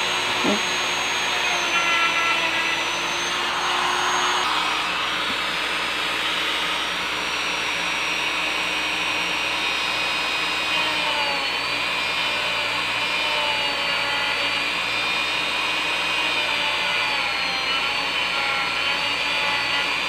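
Handheld rotary tool with a thin cut-off disc running steadily, its high whine dipping and wavering in pitch as the spinning disc is worked against a plastic figure's neck connector to trim it.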